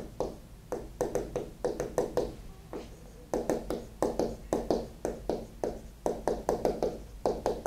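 Marker writing on a board: a quick, irregular run of short squeaking strokes, a few each second, as the words "explicit differentiation" are written out.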